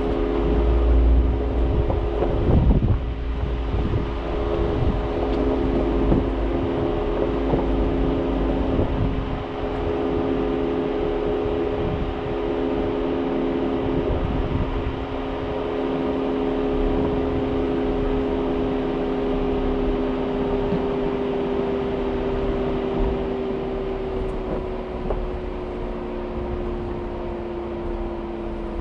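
Jeep engine running steadily at low speed while crawling over a rocky dirt trail, with a low rumble and a few knocks as the vehicle jolts over rocks in the first few seconds. The engine note drops slightly near the end as the trail heads downhill.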